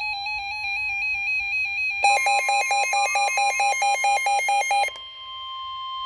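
Electronic alert tones from a weather radio. A warbling tone rapidly flips between two pitches, then about two seconds in the steady NOAA Weather Radio warning alarm tone starts under loud pulsing beeps, about four to five a second. The beeps cut off suddenly just before the end, while the steady alarm tone carries on more quietly, announcing a new warning.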